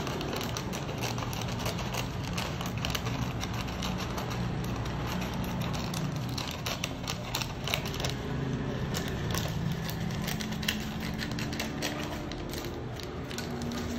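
Baking paper crinkling and rustling as it is pressed and folded into a round metal cake tin, with scissors snipping the paper near the end. A steady low hum runs underneath.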